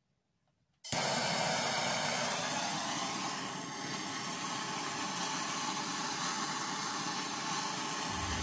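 A steady rushing hiss from a running tool, starting abruptly about a second in; music comes in near the end.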